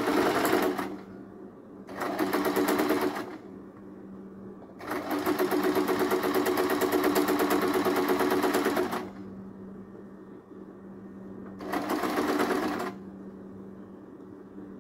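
Electric household sewing machine stitching in four short runs that start and stop, the longest about four seconds in the middle, with a faint steady hum in the pauses between runs.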